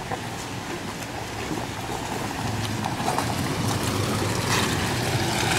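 Off-road SUVs, a Toyota FJ Cruiser closest, crawling along a rocky dirt track. Their engines run steadily and the tyres crunch and click over stones, growing louder as they approach.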